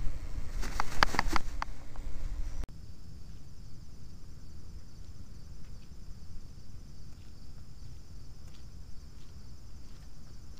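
Low rumble of wind and handling on a small camera's microphone, with a cluster of sharp clicks about a second in. It cuts off abruptly about two and a half seconds in, giving way to a quieter steady hiss with faint scattered taps.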